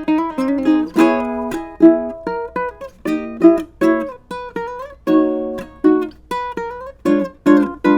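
Islander AST-4 ukulele being played: a run of plucked notes and chords, each with a sharp attack that rings and fades.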